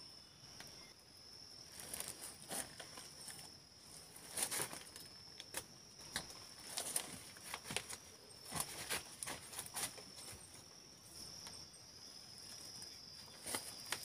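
Faint footsteps and rustling on dry leaf litter and rock, in short irregular clicks and crunches, over a steady high chirring of insects that fades in and out.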